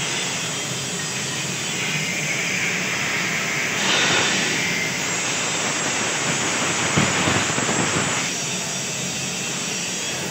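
Steady hissing din of a metal fabrication workshop, with a louder stretch of hissing and crackling in the middle lasting about four seconds.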